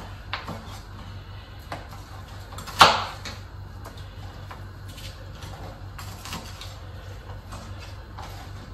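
Kitchen knife cutting prawns on a plastic chopping board: scattered light taps and clicks of the blade on the board, with one sharp loud knock a little under three seconds in. A low steady hum runs underneath.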